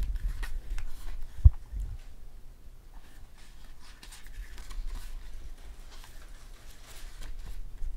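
Paper pages of a photo book being handled and flipped, a soft rustling and riffling of paper, with one dull low thump about one and a half seconds in.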